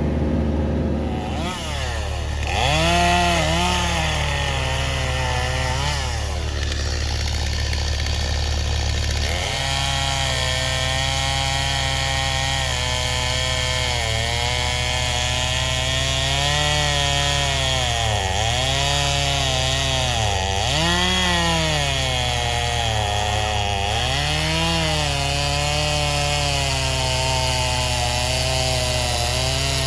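Excavator-mounted vibratory pile hammer running while driving a piling, a steady low hum under a buzz whose pitch dips and rises every second or two.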